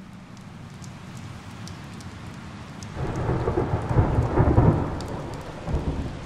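A steady hiss with faint scattered ticks, then a heavy low rumble swells in suddenly about three seconds in, loudest a second or two later, and fades with a last swell near the end.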